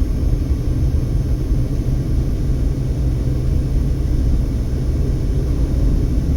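Steady low rumble of a car's engine and tyres on the road, heard from inside the cabin while driving at low speed.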